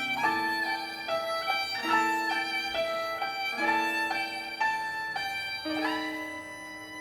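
Instrumental music: a violin plays a melody of short held notes over sustained lower string notes, settling into a long held chord near the end.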